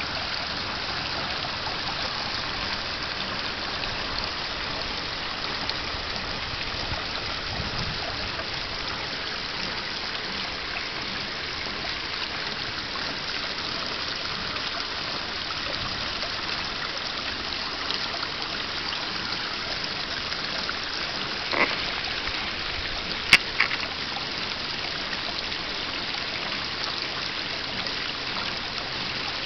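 Small stone waterfall spilling steadily into a koi pond, a continuous splashing trickle. Three brief sharp clicks come about three-quarters of the way through.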